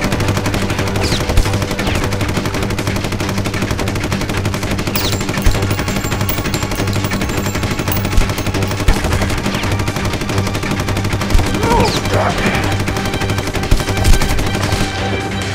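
Submachine gun firing full-auto in one long, nearly unbroken stream of rapid shots, a few louder cracks standing out. It thins out near the end.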